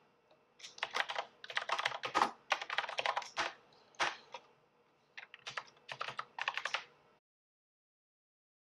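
Typing on a computer keyboard: quick runs of keystrokes with short pauses between them, stopping abruptly about seven seconds in.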